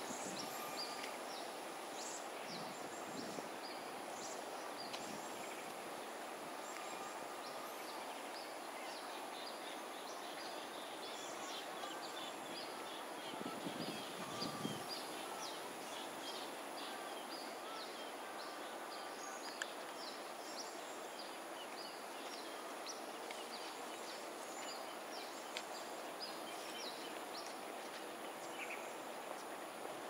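Faint outdoor waterside ambience: a steady background hiss with many short, high chirps scattered throughout.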